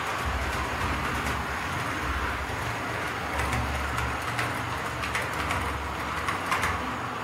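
HO-scale model train running on the track: a steady whir from the locomotive's motor and wheels, with faint irregular clicks as the wheels pass over rail joints.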